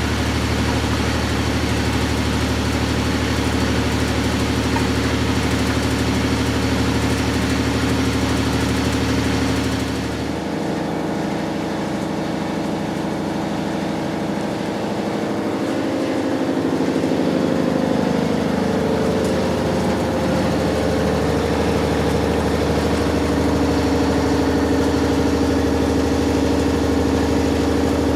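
Matura Autostatic 850 washing machine running with a steady mechanical drone. About ten seconds in, the low hum and hiss drop away, then a whine rises in pitch and settles at a steady higher note.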